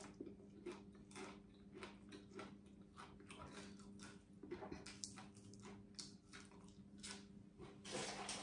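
Close, faint crunching and chewing of crispy deep-fried sun-dried fish, about two crunches a second, over a steady low electrical hum. A louder hiss-like noise starts near the end.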